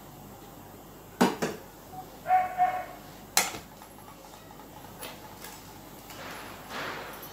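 Stainless steel kitchen utensils knocking and clinking as they are set down: a steel bowl, a small pot and a slotted ladle dropped into the kadai. There are sharp knocks about a second in and again about three and a half seconds in, with a brief high whine between them.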